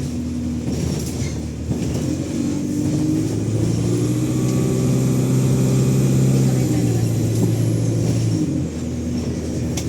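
ADL Enviro200 bus diesel engine pulling under acceleration, growing louder from about three seconds in, with a high turbo whine rising over it and then falling away. The engine note drops back suddenly near the end.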